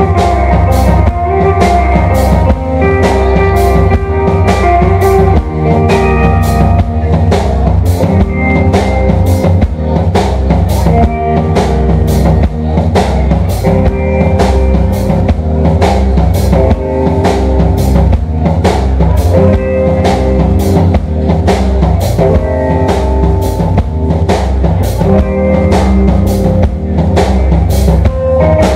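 Live rock band playing loud: electric guitars over a drum kit keeping a steady beat.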